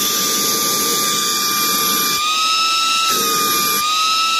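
Small cordless handheld vacuum with a 120 W brushless motor running at its second speed with the nozzle off: a steady high whine over the rush of air. About halfway and again near the end the rush of air drops away and the whine rises slightly as a palm closes off the intake, then the air noise comes back.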